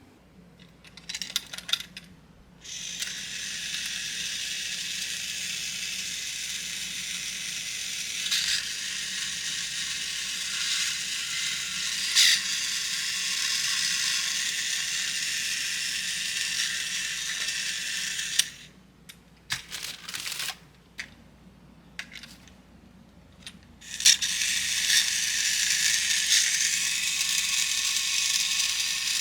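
Battery-powered Plarail Thomas toy train running on plastic track: a steady high whirr and rattle of its small motor and gears, with a few sharp clicks. It stops for about five seconds about two-thirds of the way through, then starts again.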